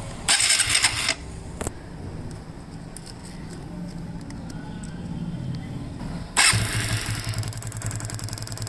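TVS Apache RTR 180 electric starter cranking the engine with the spark plug out for a spark test: a short burst about a quarter second in, then a longer cranking run from about six seconds on with an even pulsing. The spark is weak and dropping out, which the mechanic takes for the cause of the misfire.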